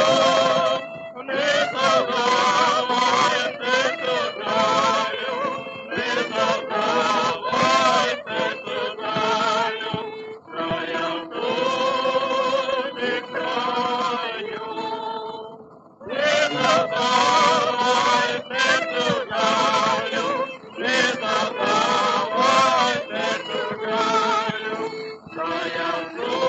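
A 1930 Columbia 78 rpm recording of a Ukrainian folk song: a vocal quartet singing in harmony with vibrato, accompanied by a small orchestra. The singing comes in phrases, with a clear pause about fifteen seconds in before the next phrase begins.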